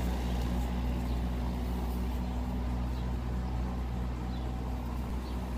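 A motor vehicle engine idling close by: a steady low hum.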